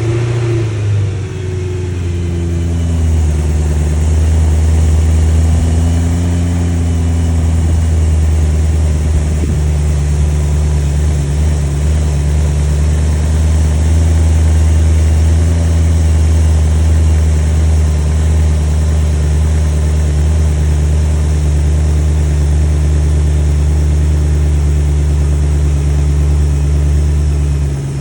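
BMW S65 4.0-litre V8 running through a valved stainless-steel axle-back exhaust. Its revs flare and fall over the first few seconds, then it settles into a steady idle.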